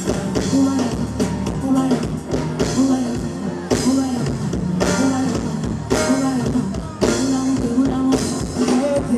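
Live band playing upbeat dance music: electric bass, keyboards and drum kit, with a bass line that repeats about once a second.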